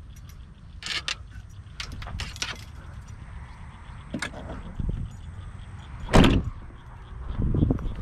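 Fishing rods and tackle clattering as they are pulled from an SUV's cargo area, then the rear liftgate slammed shut with one loud thud about six seconds in, followed by a softer knock.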